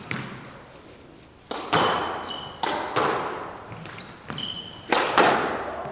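Squash rally: several sharp smacks of the ball off racquets and the court walls, each echoing in the enclosed court, with short high squeaks of court shoes on the wooden floor between shots.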